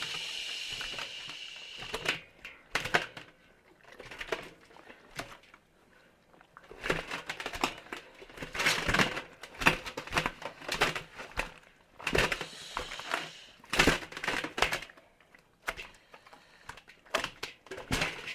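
A large catfish struggling in a stainless-steel bowl as hands and a cloth hold it down: irregular knocks and slaps against the metal, with rustling of the cloth. The clatter comes in clusters, busiest in the middle and again a few seconds later.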